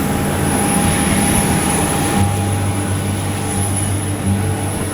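A small propeller aircraft's engine running steadily. A deeper hum joins about two seconds in.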